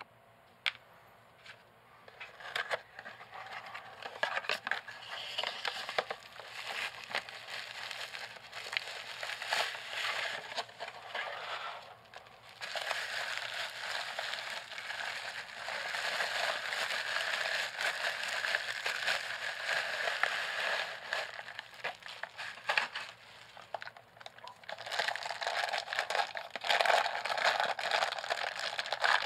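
Bubble wrap and a clear plastic bag crinkling and rustling as they are handled and pulled off a set of metal camera extension tubes, with many small crackles. Quiet for the first couple of seconds, with brief lulls partway through.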